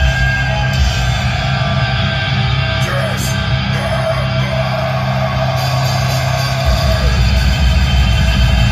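Heavy metal music with electric guitars and vocals, loud and steady throughout.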